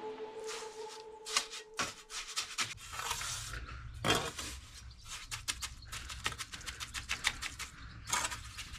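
Irregular scraping and rubbing with many scattered sharp clicks. A held music note dies away in the first second or so.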